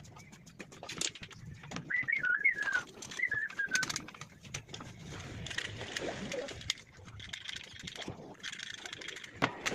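Birds calling, with a wavering chirp about two seconds in, among scattered light clicks.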